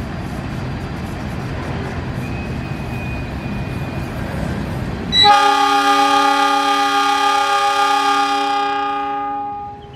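CC 206 diesel-electric locomotive running with a low rumble, then about five seconds in its air horn sounds one long steady multi-note blast of about four and a half seconds: the semboyan 35 signal given as the train departs.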